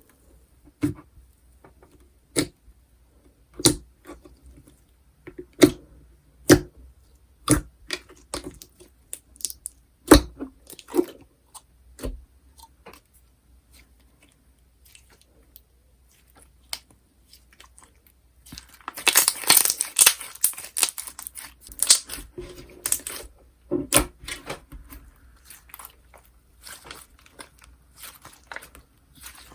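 Slime being handled for ASMR: a string of sharp pops and clicks, then about 19 seconds in a dense crackling, crunchy stretch that tails off into softer crackles.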